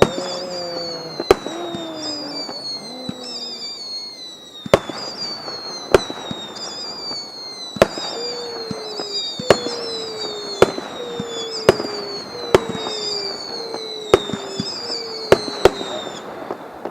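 Fireworks display heard from a distance: about a dozen sharp bangs at irregular intervals. Behind them runs a high whistling tone that falls in pitch, repeating about once a second.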